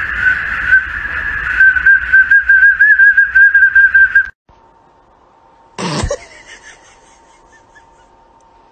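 A small plastic toy pea whistle held in a golden retriever's mouth shrills a steady high note, then breaks into a rapid warbling trill and cuts off abruptly a little over four seconds in. About a second and a half later comes a brief sound sliding down in pitch.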